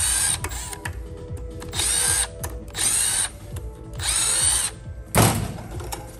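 A cordless Milwaukee impact driver with a 5 mm bit runs in four short bursts, each about half a second long, backing the cylinder head screws out of a CMEP-OL refrigerant recovery pump. A single louder knock comes about five seconds in.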